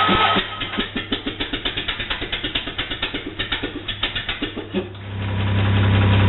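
Ford Model A four-cylinder flathead engine, converted to an air compressor, being cranked over on the starter with a quick, even chuffing of about eight beats a second. About five seconds in it catches and runs with a steady, louder drone, choked and at very little throttle.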